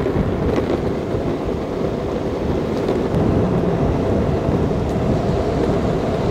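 Skateboard wheels rolling on pavement, a steady rumble mixed with wind buffeting the microphone while riding.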